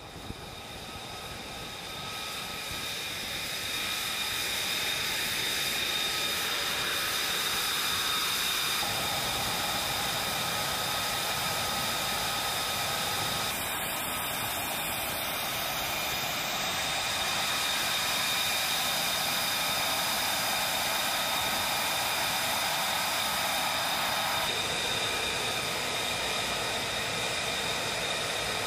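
F-35B Lightning II jet engine running at taxi power: a steady high-pitched turbine whine over a loud rushing roar, swelling over the first few seconds and then holding.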